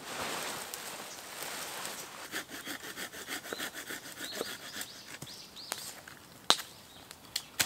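A folding hand saw cutting a wooden stick in quick, even back-and-forth strokes, followed by a few sharp cracks near the end.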